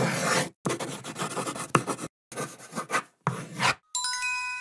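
Several short stretches of rustling, scraping noise, each cut off abruptly into dead silence, then a bright multi-tone chime about four seconds in that rings and fades over about a second.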